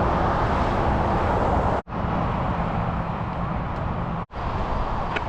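Steady road and engine noise of a pickup truck driving, cut off twice by brief dropouts to silence.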